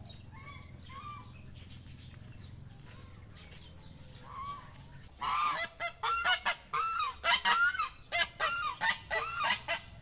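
Domestic geese honking: a few soft calls at first, then from about halfway through a quick run of loud, repeated honks.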